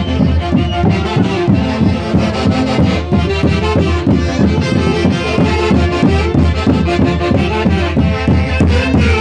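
A Huancayo orquesta típica playing a santiago tune: sustained melody instruments over an even, steady bass beat.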